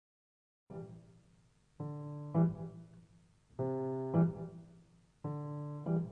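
Solo piano music. After a moment of silence, a slow figure of a held chord followed by a louder low note plays three times.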